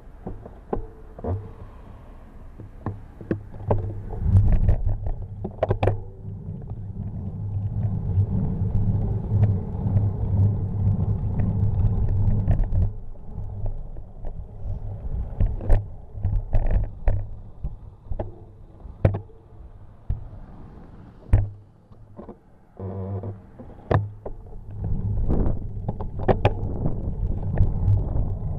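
Low wind and road rumble on a Cycliq bike-mounted camera during a bicycle ride, broken by frequent sharp clicks and knocks from the bike and mount over bumps in the road.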